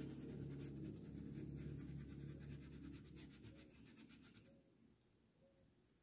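Small paintbrush scrubbing acrylic fabric paint into cotton cloth in quick short strokes, a faint rapid scratching that stops about four and a half seconds in.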